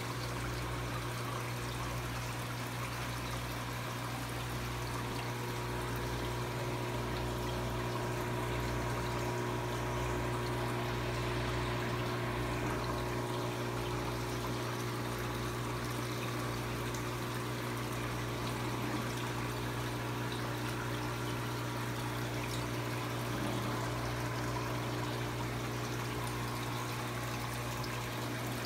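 Aquarium water trickling and running steadily, over a constant low hum.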